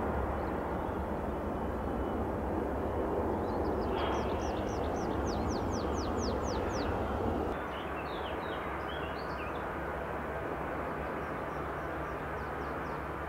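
Jet engine noise of an Airbus A321 climbing out after takeoff, a steady broad rumble that drops off suddenly at a cut about halfway through, leaving quieter steady engine noise as an Airbus A320 taxis. Birds sing over it: a quick series of repeated notes in the middle, from a tree pipit, then a burst of chattering calls just after the cut.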